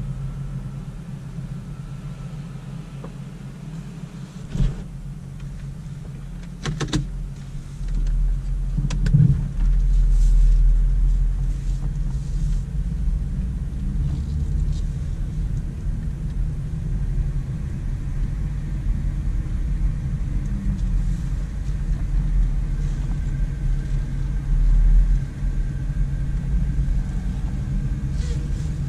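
Cabin sound of a 1996 Mercedes-Benz S420's 4.2-litre V8 running as the car pulls away and drives slowly, with a few sharp clicks in the first several seconds. A deeper low rumble comes in about eight seconds in and stays under the steady engine hum.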